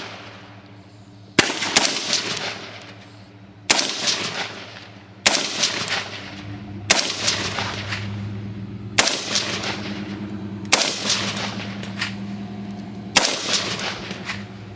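AR-15 rifle fired one shot at a time, seven shots spaced about one and a half to two and a half seconds apart, each with a long echoing tail. The last shot is the last in the magazine, which is then thought to be empty.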